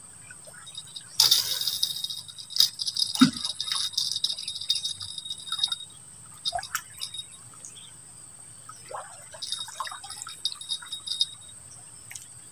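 Fishing line whizzing off a spinning reel during a long cast, with a hiss that starts suddenly about a second in and fades out after several seconds, followed by scattered rattling clicks from the reel as the slack is wound in.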